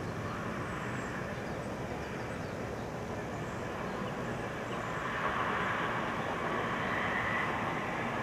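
Distant passenger train rolling through a rail yard: a steady rumble and hiss over city background noise, growing a little louder about five seconds in, with a faint high whine.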